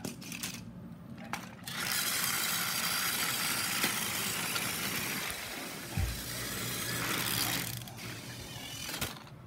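Battery-powered TOMY toy train's motor and gearbox whirring steadily as it runs along plastic track, louder from about two seconds in, with one low thump about six seconds in.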